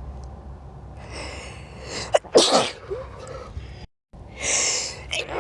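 A person sneezing: a breathy in-breath builds for about a second, then a sharp, loud sneeze about two seconds in. A second in-breath builds near the end and breaks into another sneeze right at the close.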